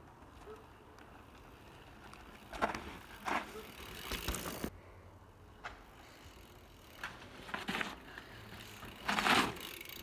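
Mountain bike riding past on a dirt trail: knobbly tyres scrubbing and skidding on the soil in several short noisy bursts, the loudest near the end.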